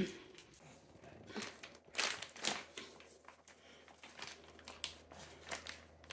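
Clear plastic bag of dried-meat dog treats crinkling in irregular bursts as a Pomeranian tugs at a treat held inside it.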